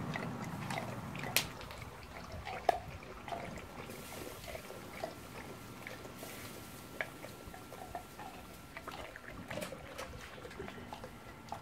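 A dog lapping water from a bowl: irregular wet laps and splashes.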